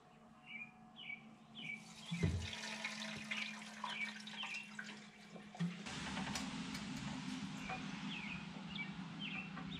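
A small bird chirping over and over, about two short falling chirps a second, over a steady low hum, with a thump about two seconds in. About six seconds in, a louder watery rushing hiss starts and carries on.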